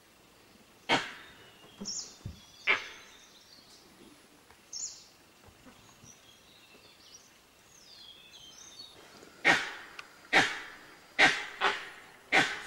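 Sharp animal barks, likely alarm calls from wild animals reacting to a tiger in the open. There are two in the first three seconds, then a run of five about a second apart near the end. Small birds chirp faintly in between.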